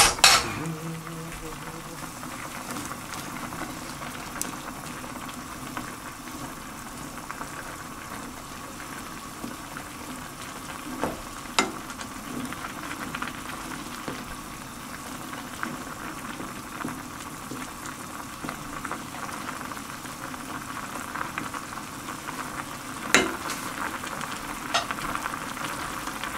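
A pot of ramen broth boiling steadily on the stove with a constant bubbling, while a wooden spoon stirs the noodles, with a few sharp knocks about eleven seconds in and again near the end.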